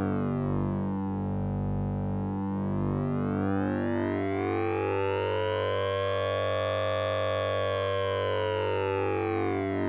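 Orange Vocoder plug-in's 'Sync'n'Ring' synthesizer sound: a steady electronic drone with a siren-like sweep. Its brightness falls, rises slowly to a peak about seven seconds in, then falls again.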